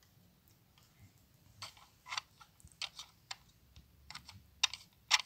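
Plastic parts of a toy beehive playset clicking and tapping as it is handled: a run of irregular sharp clicks starting under two seconds in and getting louder near the end.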